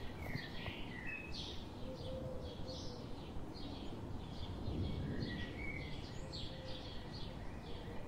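Small birds chirping, many short repeated calls throughout, over a steady low rumble of outdoor background noise.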